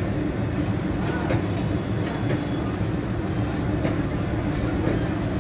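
Indian Railways passenger train coaches rolling past: a steady rumble of wheels on track, with occasional clicks.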